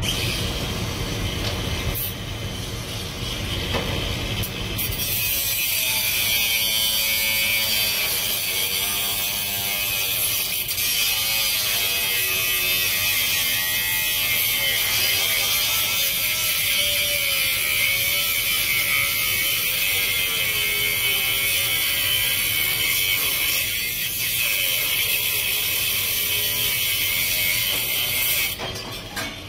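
Cordless angle grinder with a cut-off disc cutting through perforated steel angle: a loud, steady high-pitched grinding hiss starts about five seconds in and stops just before the end, with the motor's pitch wavering as the disc loads in the metal.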